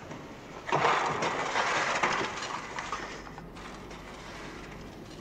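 A sudden rough, crash-like noise about a second in, dying away over about two seconds.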